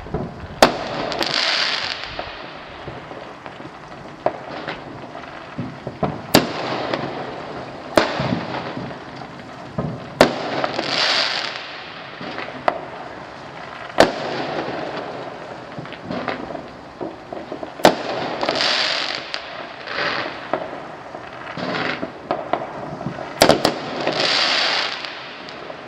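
Fireworks going off: sharp bangs every two to four seconds, several of them followed by about a second of hissing crackle.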